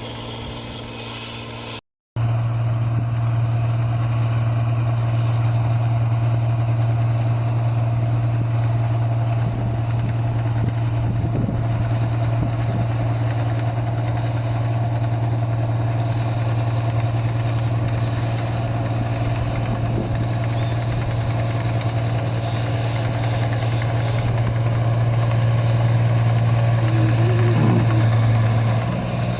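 Engine of an 8060 paddy combine harvester running loud and steady with a deep, constant drone. The sound cuts out completely for a moment about two seconds in, then resumes unchanged.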